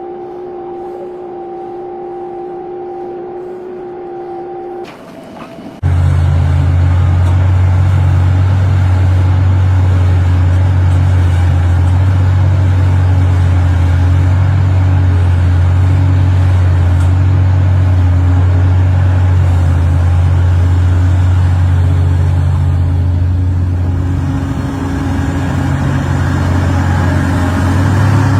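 A steady, fairly high two-tone whine from machinery, then about six seconds in a sudden change to the loud, steady, deep drone of a heavy machine's diesel engine running.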